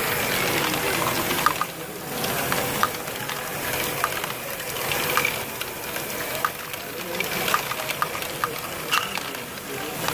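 Lego Great Ball Contraption running: a steady clatter of plastic balls rolling and rattling through the modules and lifters, with scattered sharp clicks.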